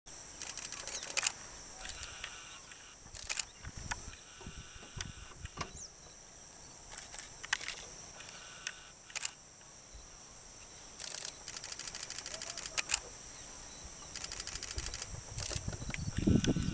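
Camera shutters firing in rapid bursts of clicks, on and off, with short gaps between bursts. A low rumble rises near the end.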